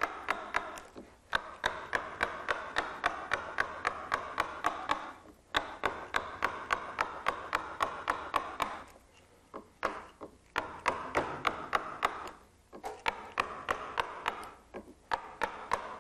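A mallet tapping a wide 35 mm No. 7 carving gouge through wood, roughing out the wood: quick runs of sharp taps at about four a second, with short pauses between runs.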